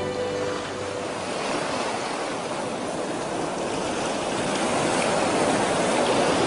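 Sea waves breaking and washing up a sandy beach, a steady rushing surf that swells louder toward the end.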